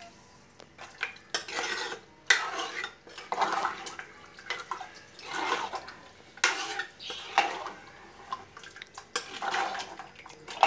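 Metal ladle stirring curry in a pressure cooker pot, scraping and clinking against the metal sides in repeated strokes about once a second.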